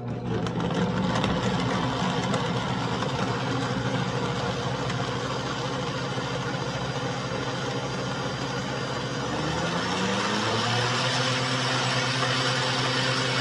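Countertop blender motor running at speed, blending frozen banana with milk and yogurt into a smoothie. Its pitch rises about ten seconds in and then holds steady at the higher note.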